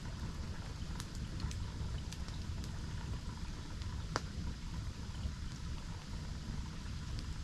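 Campfire crackling with scattered sharp pops, the loudest about four seconds in, over the steady low rush of a waterfall.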